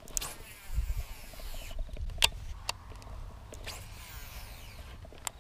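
Baitcasting reel whirring as line pays out on a cast and is wound back in, with a few sharp clicks from the reel.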